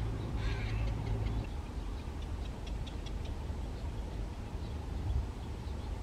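Birds calling in short, high chirps, several a second, over a steady low rumble; a louder call stands out about half a second in.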